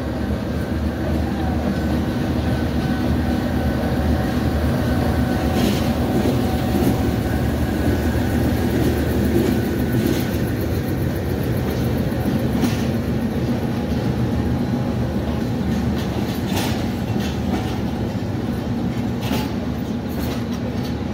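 A passenger train passes slowly alongside the platform. Its GE U20C diesel-electric locomotive goes by at the start, and a steady engine hum continues under the rolling of the coaches. About half a dozen sharp wheel clicks over rail joints come at irregular intervals.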